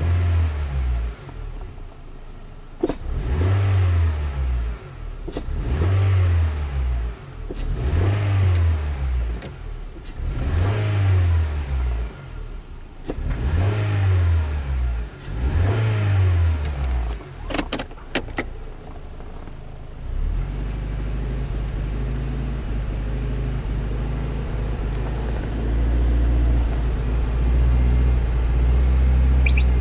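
Honda Fit's L15A 1.5-litre four-cylinder engine blipped about six times, each rev rising and falling, then running steadily for the last ten seconds. This is an engine that misfires when the throttle is opened.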